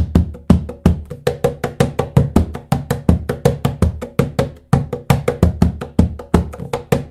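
Hands playing a fast, steady groove on the front head of a birch-ply SP2 cajón with its adjustable snare disengaged: deep bass tones mixed with sharp slaps, with no snare buzz.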